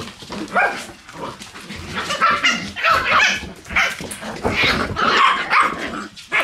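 Shiba Inu puppies barking and yipping as they play, a string of short high-pitched barks following one another for most of the stretch.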